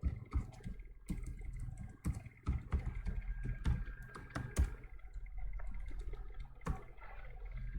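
Computer keyboard typing: irregular key clicks as commands are entered in a terminal.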